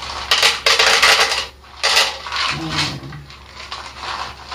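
Dry cat food scooped and poured into a bowl, the kibble rattling against the dish in several short bursts.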